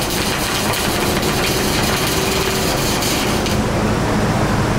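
Wire-feed (MIG) welding arc crackling steadily, cutting off about three and a half seconds in. A steady low hum runs underneath throughout.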